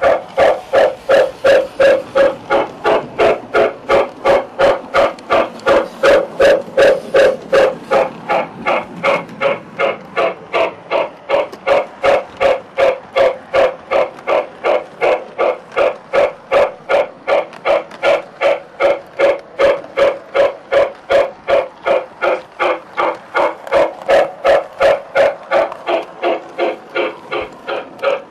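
Steam-locomotive chuffing from an O gauge model train's sound system, a steady beat of about two and a half chuffs a second.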